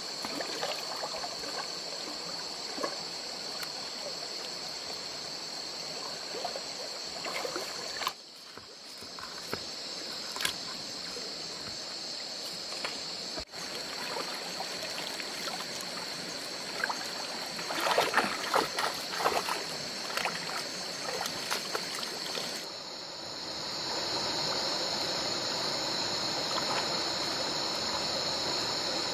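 Shallow stream water sloshing and splashing around wading legs as a fine-mesh hand net is dipped and lifted, water pouring through the mesh, with a cluster of louder splashes past the middle. A steady high-pitched drone runs underneath.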